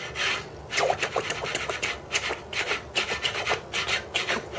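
Hex key turning the screws on a 3D printer's Y-axis bed plate while they are tightened, a quick run of short rasping scrapes, several a second.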